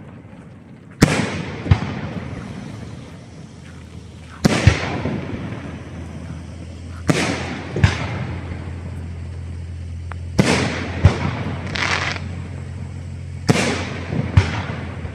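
Aerial firework shells bursting overhead: about ten sharp bangs spread a few seconds apart, several coming in close pairs, each followed by a fading crackling hiss.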